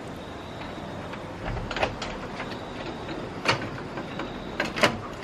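A few short, sharp knocks and clatters over a steady background hiss: one a little under two seconds in, one midway, and a cluster of several near the end.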